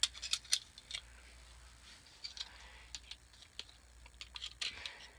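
Small clicks and clatter of a mini stapler being handled and worked apart by hand. A quick run of sharp clicks in the first second, then scattered fainter clicks and a short scrape near the end.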